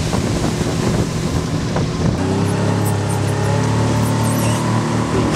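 Honda 30 hp four-stroke outboard running under way, with wind and water rushing past the boat. About two seconds in the engine note steadies and climbs slightly. It is running smoothly now that a blockage in its cooling-water passage has been cleared.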